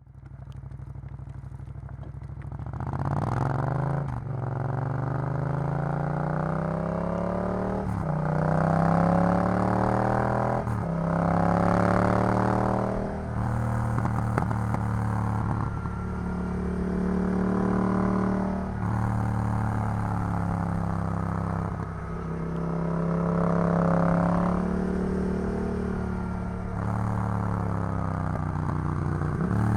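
Yamaha MT-07's 689 cc parallel-twin engine breathing through an Arrow full exhaust system, accelerating through the gears. The engine note climbs and drops sharply at each of several quick upshifts in the first half, then rises and eases off at varying revs.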